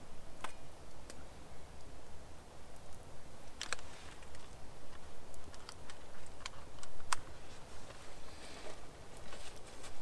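Wood campfire crackling, with irregular sharp pops and clicks over a low steady background.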